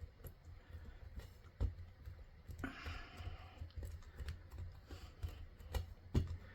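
Soft thumps and taps of hands working a polymer clay cane against a desk while reducing it, with two sharper knocks, one about a second and a half in and one near the end.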